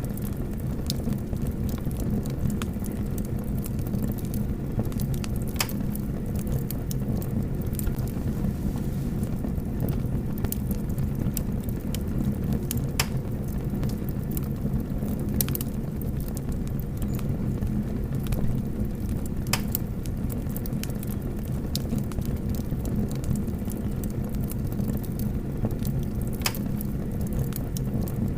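Fire burning through miniature model houses: a steady low rumbling roar with scattered sharp crackles and pops every second or so.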